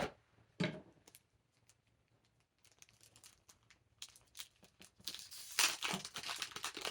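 A single knock about half a second in, then plastic wrapping crinkling and tearing as it is pulled open. The crackling starts about four seconds in and grows louder toward the end.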